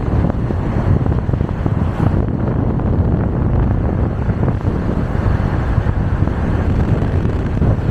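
Steady wind buffeting the microphone over the low rumble of a moving car.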